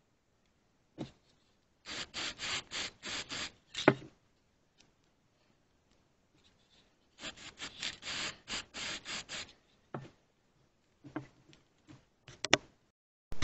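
Short hand-rubbing strokes, about four a second, in two runs of roughly seven strokes each, with a few sharp knocks in between and a louder pair of clicks near the end.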